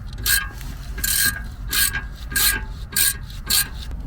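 Hand ratchet wrench clicking in repeated back-strokes, about six short bursts a little over half a second apart, as the brake caliper bolts are run down.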